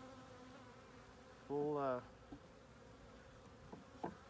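Honeybee swarm buzzing, a faint steady hum, with a short hummed vocal sound about a second and a half in.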